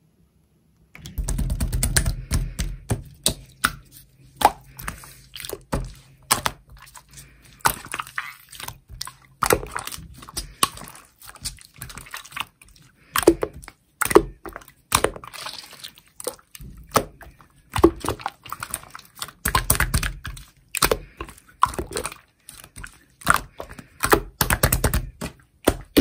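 Clear slime being squeezed, stretched and folded by hand, starting about a second in, giving quick runs of sticky clicks and wet pops with short pauses between them.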